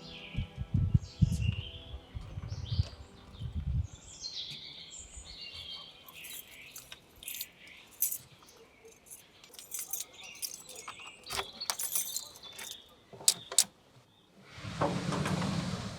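Small birds chirping, with low thumps in the first few seconds, then a run of light clinks and rattles, and a short rush of noise near the end.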